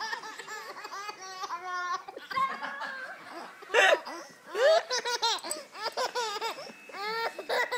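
A baby laughing in a string of short, high-pitched squealing giggles as a dog licks her face.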